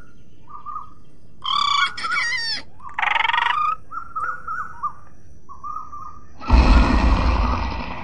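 Cartoon animal sound effects over short, repeated bird calls: a monkey's pitched, gliding chatter about a second and a half in, and a short buzzing rattle around three seconds. From about six and a half seconds comes a loud, deep dinosaur roar, the loudest sound.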